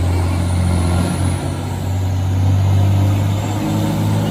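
Farm tractor engine working hard under heavy load as it pulls a weight-transfer sled down the pulling track, running at a steady pitch with a brief dip about a second in.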